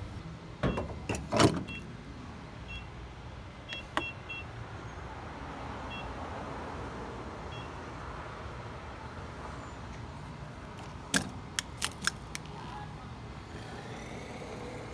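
Short beeps from a fuel pump's keypad and payment screen, with sharp clicks and knocks near the start and again a few at a time about eleven seconds in as the pump nozzle is handled and put into the vehicle's filler, over a low steady background noise.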